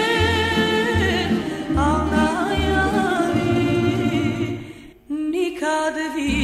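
A female singer with a tamburica orchestra, holding notes with wide vibrato over short plucked bass notes. The music nearly drops out for a moment about five seconds in, then comes back.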